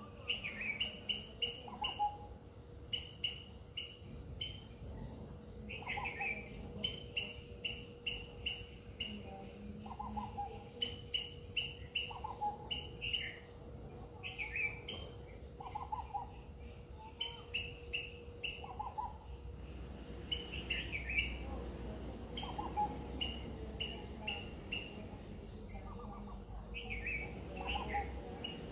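Wild birds calling: quick runs of short, sharp high chirps, with a lower call every second or two. A faint steady hum lies under them through most of it.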